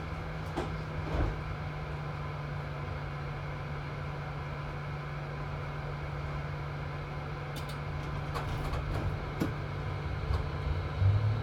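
Tram standing still with its onboard electrical equipment giving a steady low hum. About two-thirds of the way through it starts to move off: the running noise builds, with a few sharp clicks and knocks.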